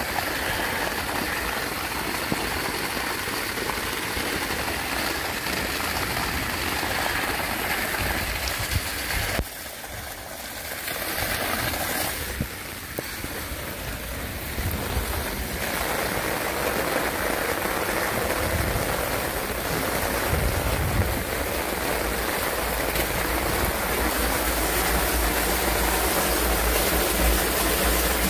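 Torrential rain pouring down with rushing water, a steady dense hiss that drops in level for a few seconds about ten seconds in.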